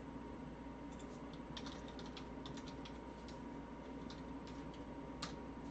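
Computer keyboard typing: faint, irregular clusters of keystrokes with one sharper click near the end, over a steady low hum.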